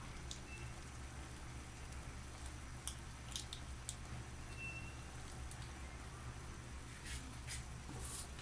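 A pan of chicken gizzards simmering in sauce, faintly bubbling and crackling, with a few sharp pops and ticks about three seconds in and again near the end, over a steady low hum.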